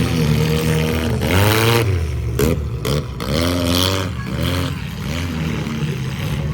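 Vehicle engine running with a steady low drone, revved up and back down about three times.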